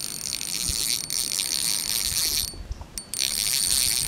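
Fishing reel being cranked, a high whirring with fine rapid clicking as a hooked fish is reeled in; it stops briefly about two and a half seconds in, then starts again.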